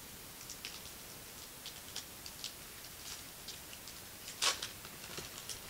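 Cardboard trading cards handled and flipped through by hand: scattered light clicks and taps of card edges, with one louder snap about four and a half seconds in.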